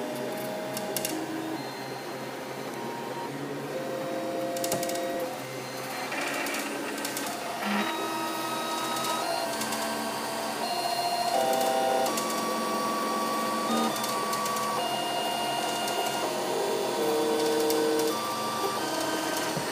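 Flashforge Dreamer 3D printer printing. Its stepper motors sing in short steady tones that jump from pitch to pitch as the print head moves, over a steady hiss.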